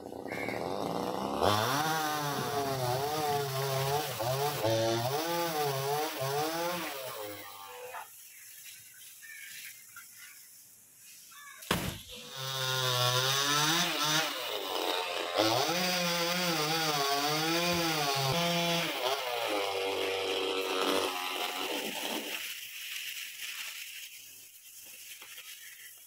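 Chainsaw running as it cuts into a coconut palm trunk, its engine pitch rising and falling repeatedly in two long spells of cutting with a quieter pause between. It drops back to a low idle near the end.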